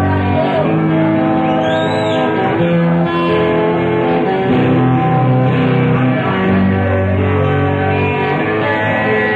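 Live rock band playing an instrumental passage led by guitar, with held notes over a steady bass line.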